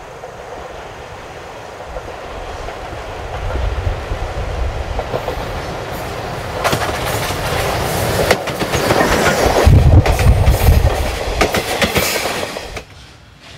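C12-class steam tank locomotive approaching and passing close by, growing louder, followed by the clickety-clack of its coaches' wheels over the rail joints. The sound cuts off abruptly near the end.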